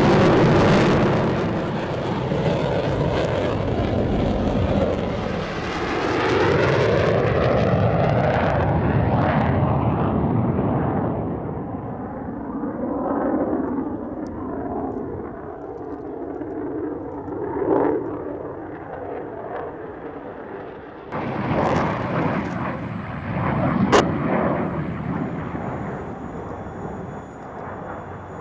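Jet aircraft flying past, loud at first and fading over the first ten seconds or so with falling pitch sweeps. Quieter jet engine noise follows, broken by a few sharp cracks in the second half.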